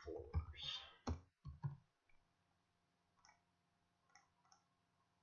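Computer keyboard keys being typed in a quick run over the first two seconds, followed by a few faint, separate mouse clicks.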